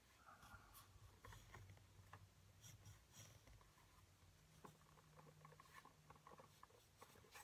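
Very faint scratching of a pen tracing around a pattern piece on leather, with small scattered ticks and taps.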